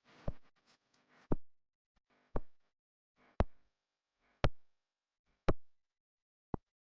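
Seven sharp knocks at a steady pace of about one a second, each ringing out briefly, with soft rustling between some of them. The last knock is weaker.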